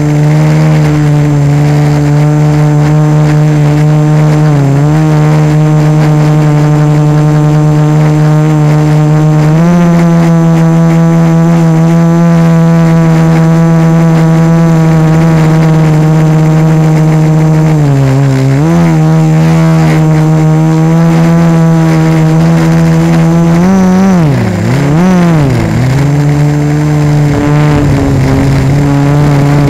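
The four A2212 1000Kv brushless motors and 1045 propellers of an F450 quadcopter in flight, heard through a camera fixed directly to the frame. They make a loud, steady buzzing whine that steps up in pitch about ten seconds in, dips briefly midway, and swings down and up twice near the end as the motors speed up and slow down.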